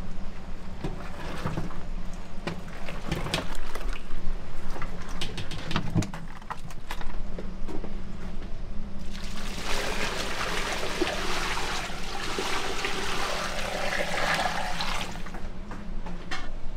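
Water running and splashing, loudest for about six seconds from around nine seconds in, with scattered knocks and clatter before it and a steady low hum underneath.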